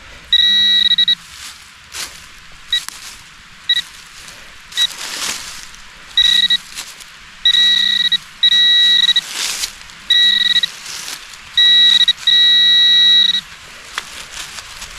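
Metal detector sounding its target tone in about eight on-off beeps of uneven length, some short and some held for over a second, as it is passed over a dug hole hunting for a lost target. Short knocks and scrapes of digging through brick and dirt fall between the beeps.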